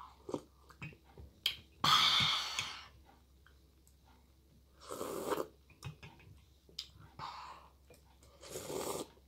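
Hot chocolate slurped off a spoon: three noisy slurps that draw in air over the drink, which is too hot to take in one go, with faint spoon clicks between.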